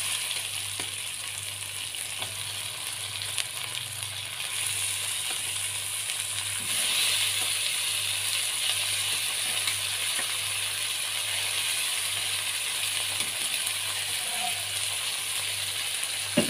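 Spice paste sizzling in oil in a non-stick wok as boiled chicken pieces are dropped in, the sizzle stepping up louder about four and a half and seven seconds in, with a few light clicks of the spatula and pieces against the pan.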